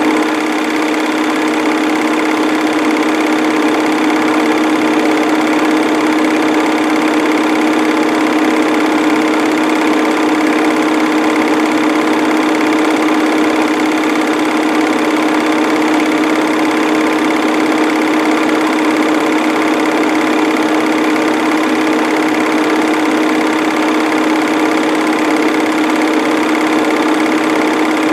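Home-movie film projector running: a steady mechanical whir with a constant hum, unchanging throughout.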